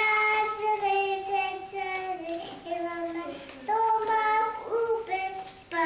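Young girl singing an improvised song about her day, in a clear high voice, holding notes about a second each with short breaks between phrases.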